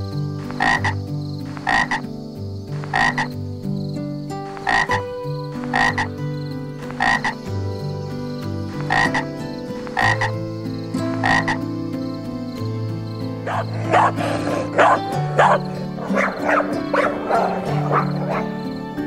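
Repeated croaking animal calls, about one a second, coming faster and denser in the last few seconds.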